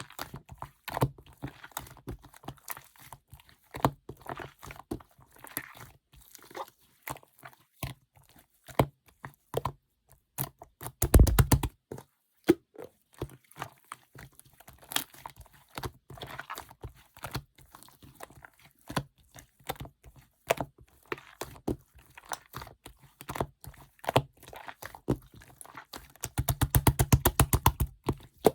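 Mixed slime being squished and pressed by hand, giving irregular sticky clicks and pops of trapped air. Twice, about a third of the way in and near the end, it breaks into a quick run of rapid popping, the loudest part.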